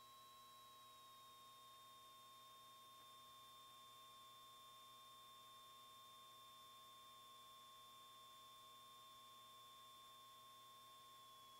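Near silence: faint hiss with a few thin steady electronic tones, one drifting slightly lower in pitch, on the cockpit audio feed between radio calls.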